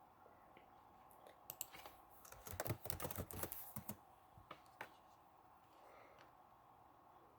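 Typing on a computer keyboard: faint scattered key clicks, then a quick run of keystrokes between about two and four seconds in, and a few last clicks near five seconds.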